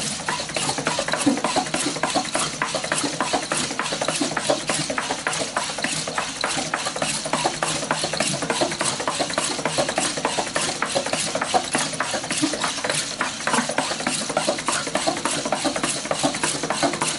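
Oncilla quadruped robot trotting: a rapid, continuous mechanical clatter from its leg actuators, joints and footfalls.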